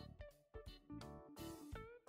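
Background music: guitar played note by note, with a couple of notes that slide up in pitch.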